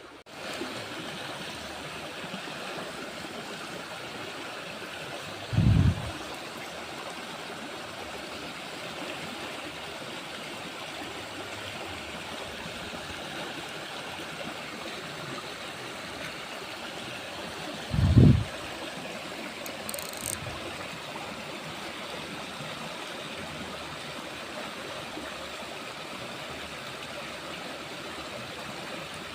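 Steady rushing of flowing stream water. Two brief, loud low thumps break through, about 6 seconds and 18 seconds in.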